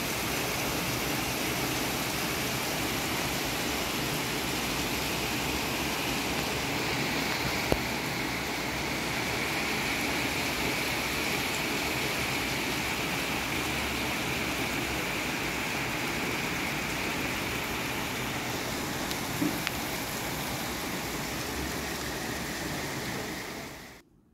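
Steady rain falling, an even hiss with a couple of faint sharp ticks; it cuts off suddenly near the end.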